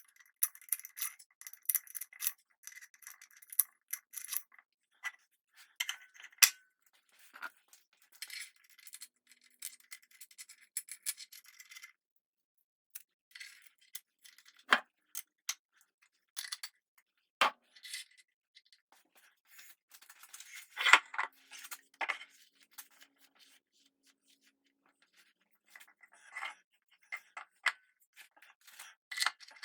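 Irregular metallic clicks, clinks and scrapes, with a few sharper knocks, as a milling-machine vise and its swivel base are fitted together with new steel T-bolts and nuts.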